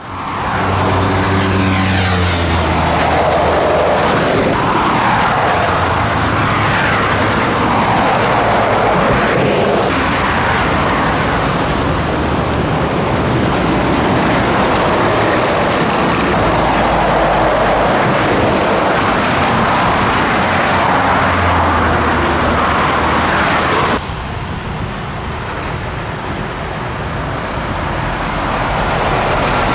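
Heavy motorway traffic passing close by: lorries and cars going past one after another, with tyre noise and diesel engines rising and falling as each one passes. The sound drops abruptly about twenty-four seconds in, then builds again.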